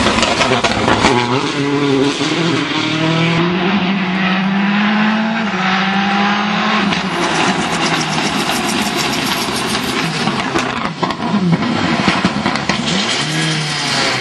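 Citroën C4 WRC rally car's turbocharged four-cylinder engine being driven hard, its pitch climbing through the revs and dropping sharply at the gear changes.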